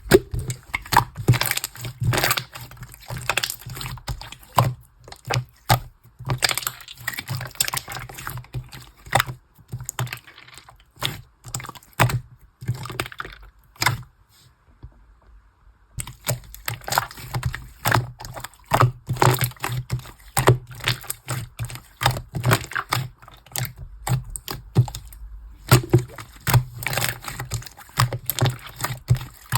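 Hands squishing, poking and stretching slime, giving a dense run of wet clicks and crackling pops. The sound stops for about two seconds midway, then resumes.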